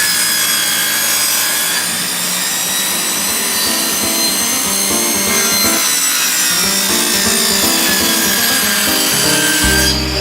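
A saw cutting through wood with a steady, continuous sound, layered over instrumental background music.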